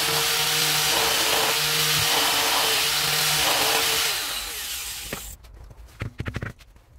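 Electric power tool running steadily, then winding down and stopping about four to five seconds in, followed by a few light knocks.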